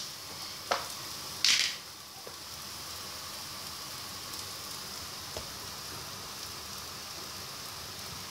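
Minced garlic sizzling steadily in oil in a nonstick frying pan, close to burning. A click comes just under a second in, and a brief louder rush of noise about a second and a half in.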